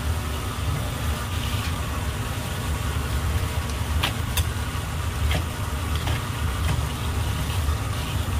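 A steady low mechanical hum under running water splashing from a hose onto a plastic cutting board. Several sharp knife clicks and taps come from about halfway through, as a black sea bream's guts are cut free.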